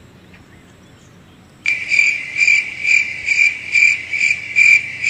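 Cricket chirping, a steady high trill pulsing about twice a second, which starts abruptly a little under two seconds in. It is the stock crickets sound effect used in comedy edits to mark an awkward silence.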